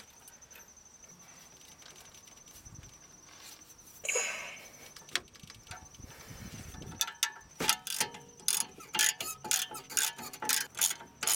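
Socket ratchet clicking quickly, about three clicks a second from about seven seconds in, as a 19 mm brake caliper bracket bolt is spun out after being broken loose. A single short knock of metal comes about four seconds in.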